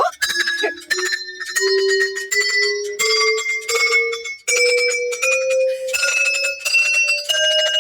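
Tuned metal bars of a playground song fence struck in rapid repeated taps, ringing like bells, with the pitch climbing note by note from low to high like a scale.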